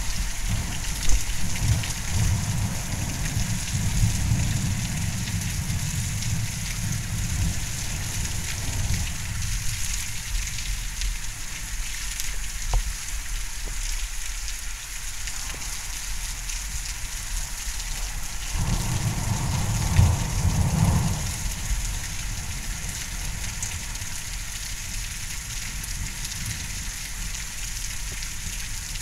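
Steady hiss of heavy rain in a strong thunderstorm, with low thunder rumbling over the first third and a second, shorter rumble about two-thirds through.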